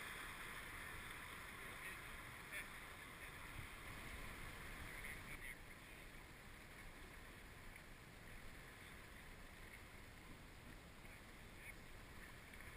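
Faint water sounds from a kayak on the move: a soft splashing hiss with a few small splashes, easing off about halfway through.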